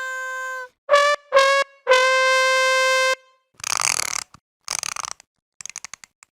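Sad trombone "wah-wah-wah-waaah" comedy sound effect: a descending run of brass notes, the last one held for about a second. After it come two short noisy bursts and a few quick clicks.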